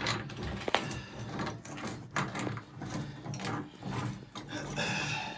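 Scattered knocks, clicks and scrapes of hands and tools working at a tub-and-shower valve, with one sharp click near the start, over a low steady hum.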